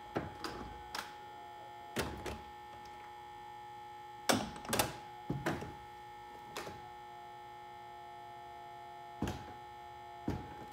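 1995 Mercedes-Benz R129 SL's electro-hydraulic soft top closing: a steady hum from the hydraulic pump runs under about ten clunks as the top's frame, rear section and latches move and seat, the loudest pair about four and a half seconds in.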